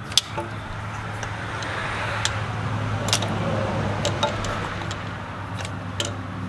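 A car passing on the road, its noise swelling over the first few seconds and fading away, over a steady low hum. Several sharp plastic clicks from handling the spark plug wires and their retainers.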